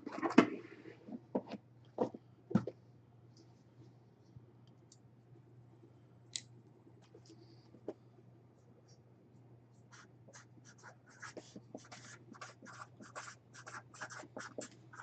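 Handling noise: a few knocks and taps in the first three seconds, then quiet, then quick scratchy rustling and tapping from about ten seconds in, over a low steady hum.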